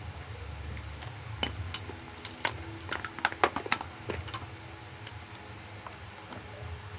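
Scattered light clicks and taps of small metal parts and a screwdriver being handled on a box fan's motor housing during reassembly, most of them in the middle few seconds.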